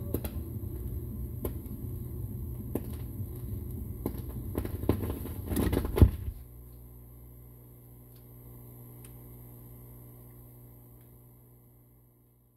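Record changer at the end of a 45 rpm single: the stylus runs in the run-out groove with rumble, surface crackle and a click about once per turn of the record. About six seconds in a sharp clunk as the auto-return trips and the tonearm lifts, then the changer's mechanism hums steadily, fading away near the end.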